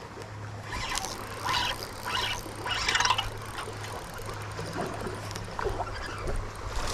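Water splashing several times in quick succession about a second into the clip, over the steady sound of water running through a creek spillway.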